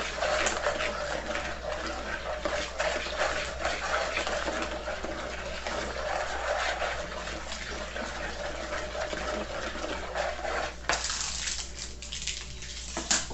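Wooden spoon stirring a liquid mix of milk, sugar, salt, oil and yeast in a bowl: steady swishing of liquid with small knocks of the spoon against the bowl.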